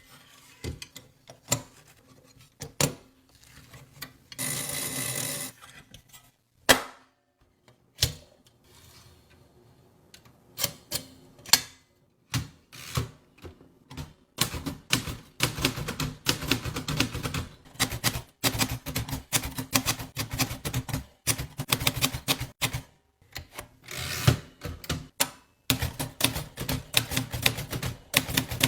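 Royal Arrow manual typewriter: scattered key strikes and clicks of the mechanism, with a rasping noise lasting about a second early on. From about halfway, rapid continuous typing, many key strikes a second with short pauses.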